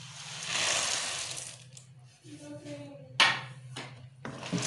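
Roasted split chickpeas and peanuts pouring off a tray into a pan of melted jaggery, a dense rushing patter for about a second and a half. A sharp knock follows about three seconds in, over a steady low hum.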